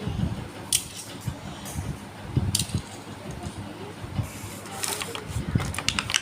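Handling noises: scattered sharp clicks and light taps, with a quick run of clicks over the last second or so, and low bumps in between.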